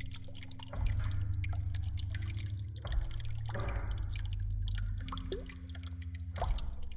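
A stream of water pouring and splashing onto a marine amplifier sitting in a tub of water, with many small spatters. Under it run the low bass notes of music the amplifier is still playing, which shows that it keeps working while wet.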